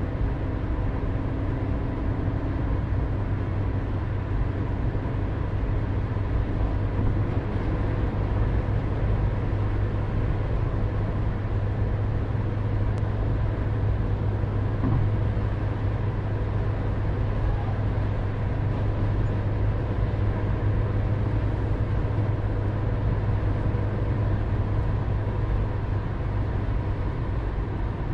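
Car cabin noise while driving: steady road and engine noise with a constant low hum.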